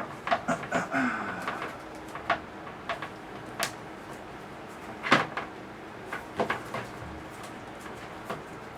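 Hard plastic parts of a VermiHut worm compost bin clicking and knocking as they are handled while the wing nuts are hand-tightened: scattered sharp clicks, the loudest knock about five seconds in.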